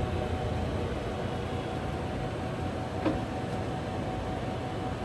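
Colchester 25 gap-bed engine lathe, driven by its 15 hp motor, running steadily under power with the spindle turning at 100 RPM, a steady mechanical noise with a faint constant tone. A brief sharp squeak sounds about three seconds in.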